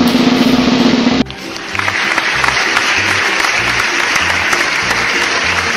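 Background music with a steady beat. A puff sound effect plays during the first second, then recorded applause starts about two seconds in.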